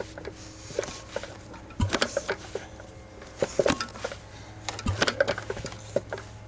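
Old concrete-mixer engine being turned over by hand: a low thump about every three seconds as it comes up on compression, with metallic clicks and clatter in between.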